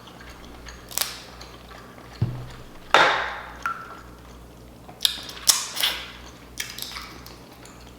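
Snow crab leg shells being cracked and snapped apart by hand: a series of sharp cracks, the loudest about three seconds in, with a dull thump just after two seconds and several smaller snaps between five and seven seconds.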